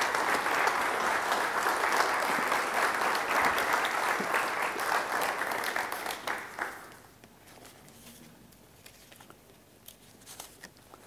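Audience applauding, a dense patter of many hands that dies away about seven seconds in. It leaves a quiet hall with a few faint clicks.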